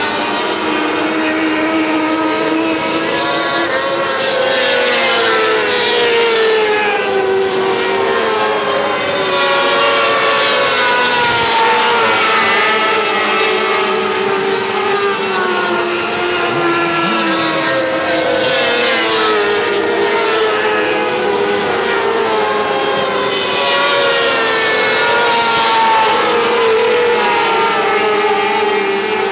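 Several 600cc micro sprint cars racing round a dirt oval, their engines overlapping and rising and falling in pitch continuously as they accelerate, lift and pass.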